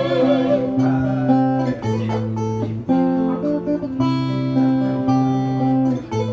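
Acoustic guitar playing an instrumental interlude between verses of a ballad, the chords changing about once a second.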